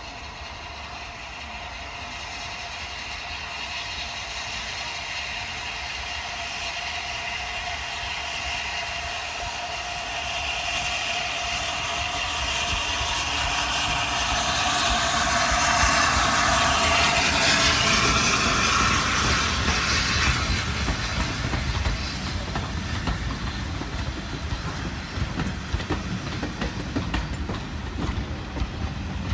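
Class A1 Pacific steam locomotive 60163 Tornado approaching and passing close by, growing steadily louder to its loudest about two-thirds of the way in. Its train of coaches then rolls past with a clickety-clack of wheels over rail joints.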